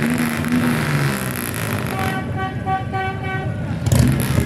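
A large cruiser motorcycle's engine running as it rolls past, then a vehicle horn tooting a quick series of short beeps. Near the end a louder surge of engine noise.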